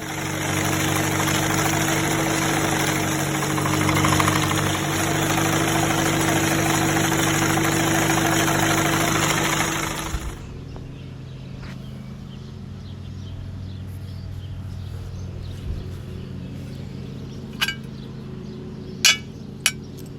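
Tractor engine running with a mower, a loud steady clatter that cuts off suddenly about ten seconds in. A quieter steady engine hum follows, with a few sharp clicks near the end.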